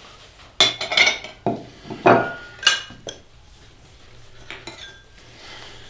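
Plates clinking and clattering against each other as they are handled, a quick run of sharp knocks with brief ringing over about two and a half seconds. Softer handling sounds follow as a plate is wiped with a dish towel.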